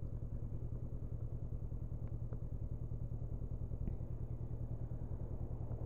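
Honda CB500F's parallel-twin engine running steadily with an even low throb and no revving.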